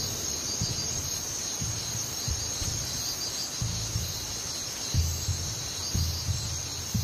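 Night insects chirring in a steady high chorus, with irregular low, deep thuds underneath; the strongest thud comes about five seconds in.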